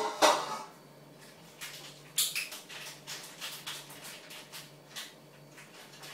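Scattered light clicks, knocks and brief rustles of things handled on a kitchen counter, with a louder short noise about a quarter second in.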